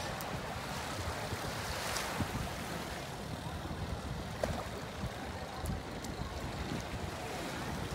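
Sea waves washing, with wind gusting on the microphone.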